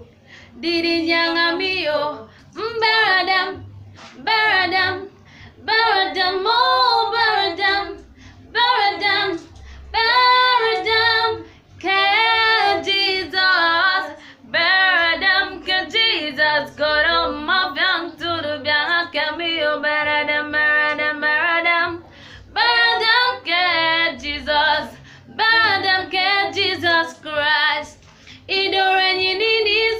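A young woman singing solo and unaccompanied, in sung phrases of a few seconds each with short pauses for breath between them.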